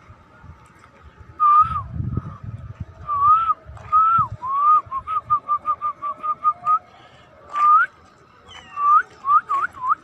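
A person whistling to call cats: a few short gliding whistles, then a quick run of short chirping whistles about halfway through, a rising whistle, and near the end a fast series of short upward-flicking whistles.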